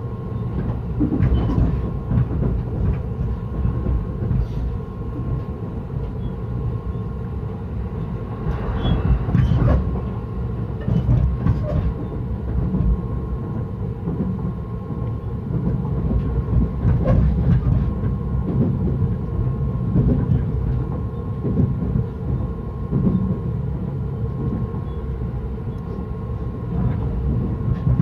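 Electric commuter train running between stations, heard from inside the carriage: a steady low rumble with a faint steady whine and occasional clacks of the wheels over rail joints.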